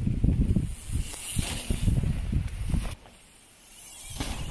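Mountain bike riding a woodland dirt trail: uneven low rumbling noise of tyres over dirt and wind on the microphone. It drops off abruptly about three seconds in and comes back about a second later.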